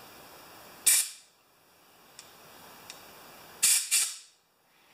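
Compressed-air blowgun giving three short blasts of hiss through a small-engine carburetor's main jet, one about a second in and two close together near the end, to clear the jet of dirt.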